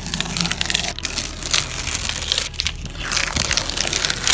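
Blue painter's tape being peeled off a car's paint and rear glass: a continuous crackling, tearing sound.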